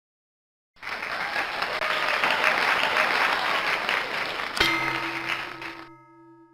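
Applause that starts suddenly about a second in and fades out near the end, with a sharp struck musical note or chord about four and a half seconds in that rings on.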